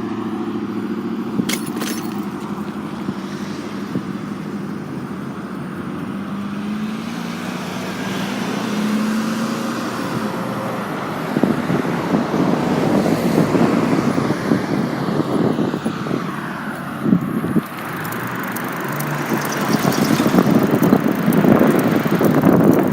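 Car traffic passing on a street, with one engine note rising about eight to ten seconds in. In the second half, wind rushes over the microphone as the bicycle rolls along.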